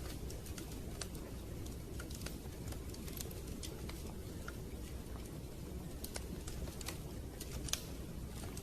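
Wood fire crackling: irregular sharp pops and snaps over a steady low rushing sound, with one louder pop near the end.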